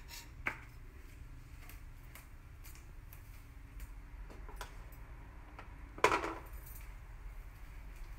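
Kitchen quiet with faint scattered ticks, a small clink about half a second in and one loud metallic clink with a short ring about six seconds in: steel utensils knocking against the steel pot.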